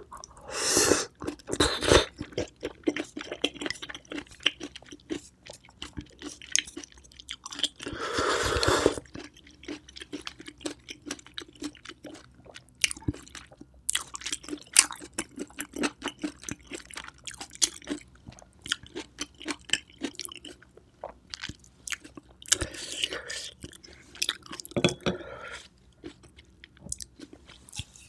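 Close-miked chewing of a large oyster with a chopped garlic, chili and scallion topping: wet, crunchy mouth sounds with many small clicks. There are louder bites in the first couple of seconds, a longer noisy burst about eight seconds in, and another cluster of louder sounds near the end.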